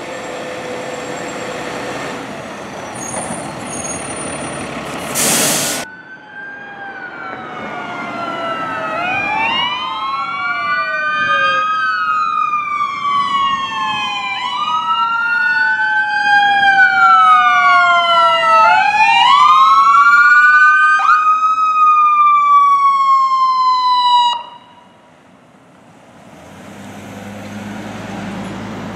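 Fire apparatus sirens wailing, two or more at once in overlapping rising and falling sweeps, cutting off suddenly about 24 seconds in. Before them a heavy truck engine is running, with a short loud hiss of air about five seconds in.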